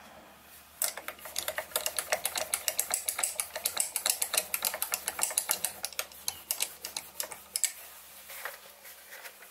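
Sieg SX2P mini-mill milling a metal workpiece with an end mill: a rapid, uneven clatter of ticks starts about a second in and dies away near the end, over the faint steady hum of the mill's motor.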